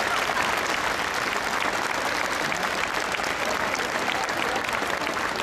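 Crowd applauding: steady, dense clapping from many spectators, easing slightly near the end.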